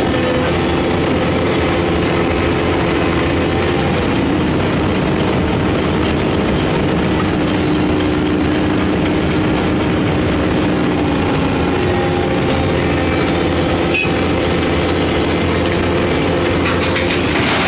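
A large hydraulic excavator's diesel engine running steadily under working load, its pitch shifting as the hydraulics work. A few short knocks come near the end.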